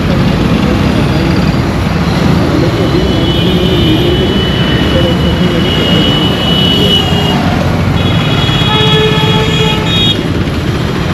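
Dense road traffic noise with vehicle horns: one high horn held for about four seconds in the middle, then another horn sounding for about two seconds near the end.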